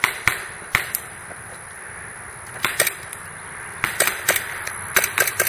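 Airsoft gas blowback pistols firing: sharp cracks, singly and in quick strings of two to four shots.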